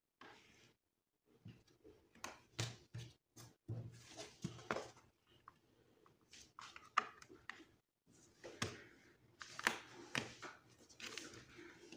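Paper and cardboard craft materials being handled on a work table: scattered light taps, clicks and soft rustles as the cover is pressed and positioned.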